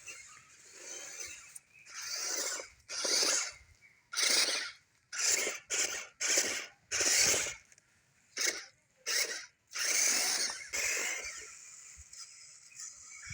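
A 1:10 scale 4WD RC off-road car driven in short stabs of throttle, its tyres churning the ground in about a dozen short hissing bursts, the closest ones about two a second in the middle.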